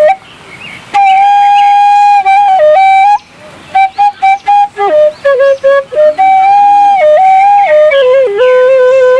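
Bamboo suling flute playing a slow solo melody of long held notes with small slides between them, breaking off briefly near the start and again about three seconds in.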